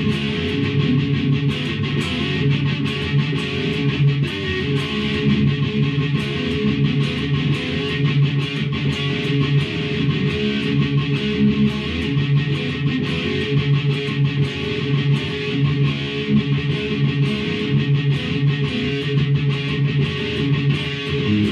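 Electric guitar fitted with its original EMG 81/85 active pickups, played continuously with quick picking of riffs and chords.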